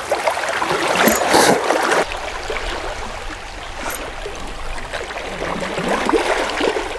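Sea water lapping against shoreline rocks, then a spinning reel being cranked as a jig is retrieved. A low wind rumble on the microphone starts about two seconds in.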